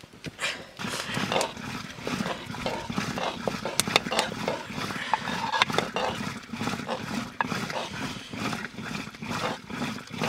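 Cooking over an open wood fire: a crackling fire under a pot at the boil, with a metal ladle stirring and knocking against the pots as maize flour is worked in. The sound is dense and uneven, with many sharp clicks throughout.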